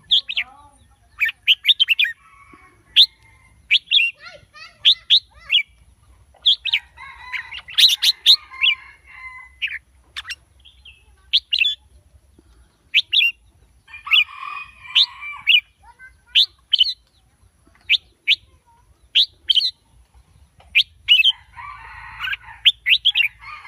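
Red-whiskered bulbul singing: short, bright chirping phrases repeated every second or two, with softer bird calls underneath in places.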